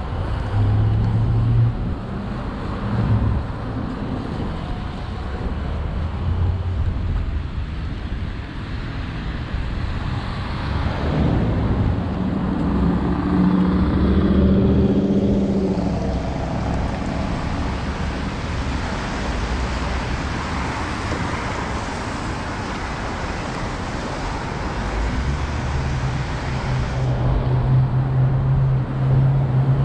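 City street traffic on wet roads: cars passing with tyre hiss on the wet pavement. A vehicle's engine hum stands out in the middle, and a steady low engine drone comes in near the end.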